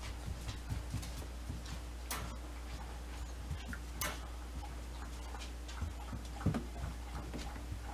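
Faint scattered clicks and light taps as a poodle puppy moves about at a wire dog crate on a vinyl floor: claws on the floor and the crate's wire. There is a sharper click about four seconds in and a couple of soft knocks near the end.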